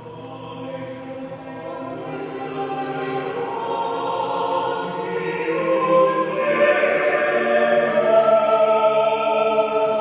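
Choral music: voices holding long sustained chords that swell steadily louder, fullest in the second half.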